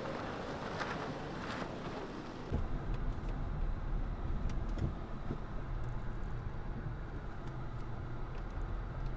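Range Rover L405 rolling down a loose dirt slope, with tyre and wind noise. About two and a half seconds in, the sound switches to inside a moving vehicle on a dirt trail: a steady low rumble of engine and tyres over the rutted track, with occasional light knocks.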